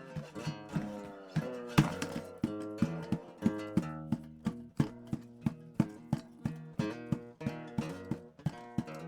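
A guitar strummed in a steady rhythm, about two to three strokes a second, playing an instrumental passage of a song.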